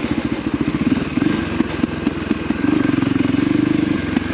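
Motorcycle engine running steadily at low revs, its exhaust pulses rapid and even, as the bike is ridden down a stony dirt track.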